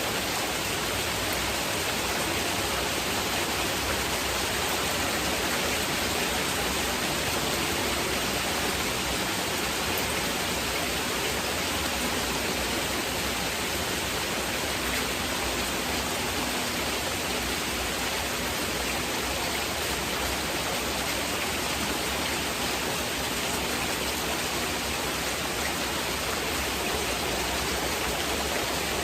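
Heavy rain falling steadily, an even, unbroken hiss, blended with gentle masking noise. Faint low tones come and go beneath it.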